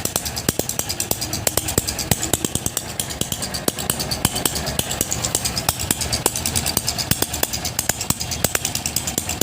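Honda X-Blade's single-cylinder engine running at idle with the tappet cover off, the exposed valve gear ticking rapidly and regularly over a low engine rumble. The tappets have too much play.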